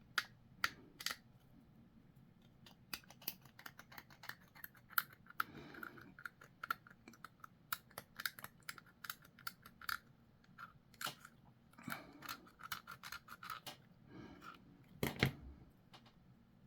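Small plastic model parts being handled: scattered light clicks and taps with a few brief soft scrapes, as tiny pieces are picked up, set down and fitted together.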